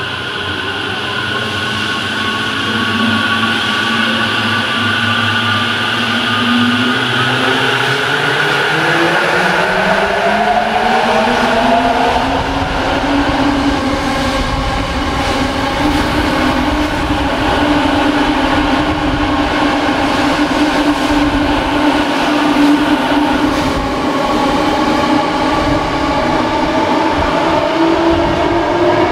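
Toyo Rapid Railway 2000 series electric train accelerating away from a station. The whine of its traction motors rises in pitch over the first dozen seconds, then holds steady over the rumble of the wheels and rises again near the end.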